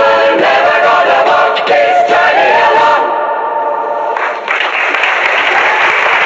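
Singing voices with music holding the final notes of a song, then applause breaks out about four seconds in.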